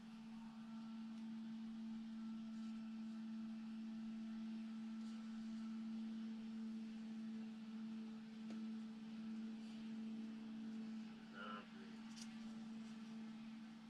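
Steady low-pitched hum, a single unchanging tone, with a couple of faint clicks near the end.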